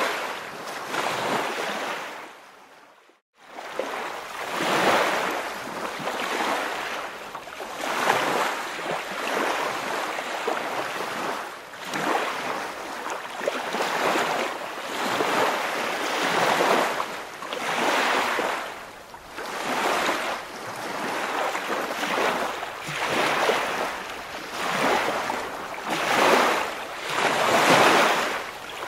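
Waves washing in a steady rhythm, each swelling and fading over about two seconds. The sound cuts out completely for a moment about three seconds in.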